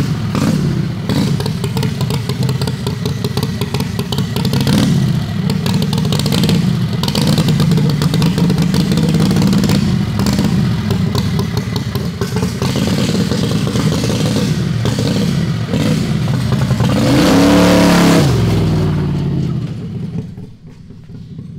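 Heavily modified 670cc Harbor Freight V-twin in a dragster, running and revved again and again. The biggest rev rises and falls about 17 seconds in, and the engine dies away near the end.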